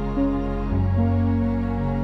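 Soft new-age background music of long held notes, the chord changing shortly after the start and again about a second in.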